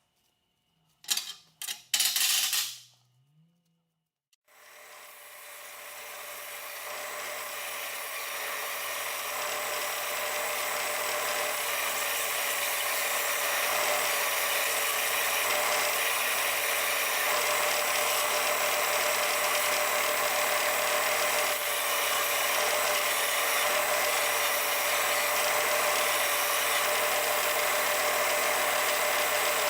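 A power tool running steadily with a constant whine and a low hum, swelling up over several seconds after a few short knocks and rattles.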